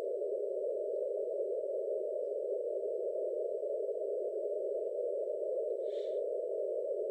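HF receiver audio in CW mode on the 30-metre band: a steady hiss of band noise squeezed through a narrow CW filter, with faint Morse from the pileup of stations calling a DXpedition.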